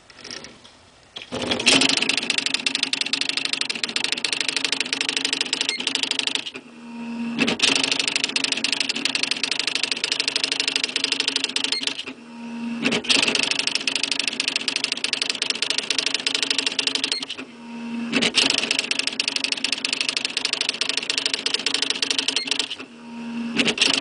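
1987 Smith Corona XD 8500 electronic daisy-wheel typewriter printing its built-in demonstration text on its own: long runs of rapid typing strikes, one line at a time. Each line ends with a short carriage return and line feed with a low motor hum, about every five to six seconds.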